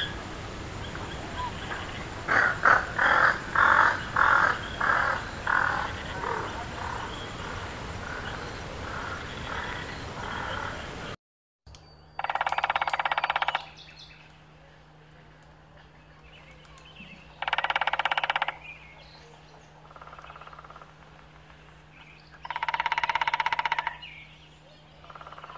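Great spotted woodpecker drumming on a tree: three bursts of rapid knocking, each about a second long and several seconds apart. Before it, a series of about eight calls, a little over two a second, growing fainter.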